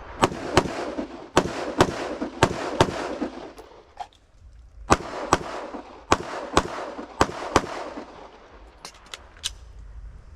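Live-fire rifle-to-pistol transition drill: six rifle shots in three quick pairs, a short pause for the transition to the pistol, then six pistol shots in pairs, each with a reverberating tail. A few fainter shots follow near the end.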